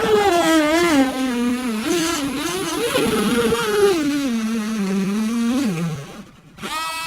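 Dremel rotary tool cutting into a hard plastic toy case, its whine dipping and rising in pitch as it bogs down under load. About six seconds in it winds down with a falling pitch.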